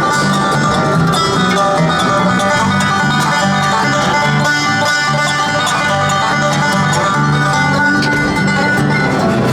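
An upbeat bluegrass tune with quick plucked strings over a steady bass line.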